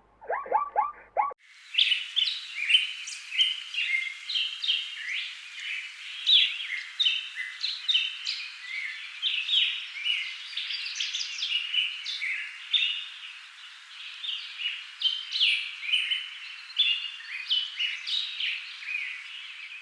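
A few short pitched animal calls in the first second, then a dense chorus of many small birds chirping over one another without a break.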